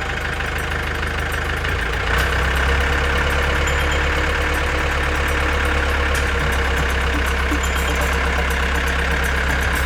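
A vehicle engine running steadily, rising in level and pitch about two seconds in and then holding even.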